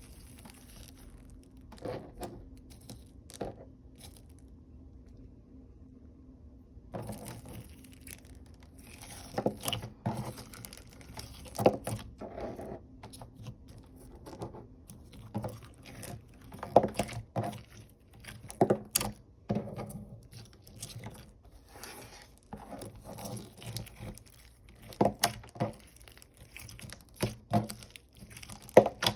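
Clear slime full of jumbo foam beads being squished and folded by hand, giving irregular crunching and crackling. It is sparse for the first several seconds and busier from about seven seconds in.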